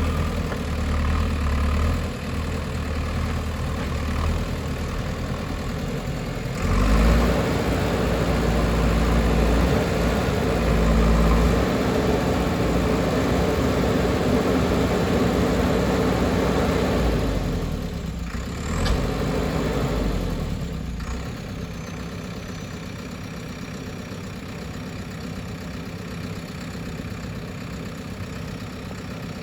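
JCB backhoe loader's diesel engine running, getting louder about seven seconds in as it works under load, then dropping back to a quieter, steady run after about twenty seconds. A single sharp knock comes near the nineteen-second mark.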